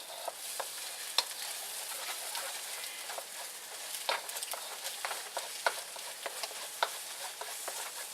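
Eggs sizzling in hot canola oil in a non-stick wok, stirred with a wooden spoon. Steady frying hiss throughout, with frequent short clicks and taps.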